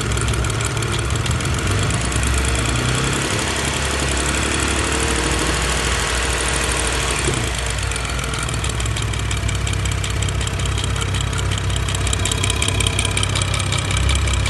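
BMW N55 turbocharged inline-six running near idle under light throttle, with the knocking noise that the owner is tracking down.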